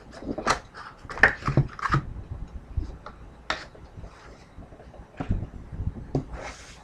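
Trading cards and their packaging being handled on a table: a series of light clicks and taps, thickest in the first two seconds, with a soft rustle near the end.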